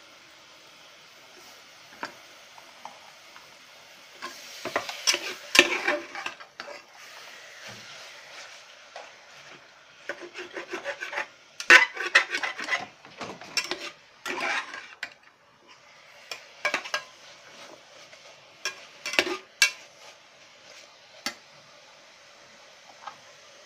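Metal spatula scraping and clinking against the inside of an aluminium pressure-cooker pot as chicken breast and dried oysters are turned over, dry-fried without oil. It comes in three spells of scraping with sharp clinks.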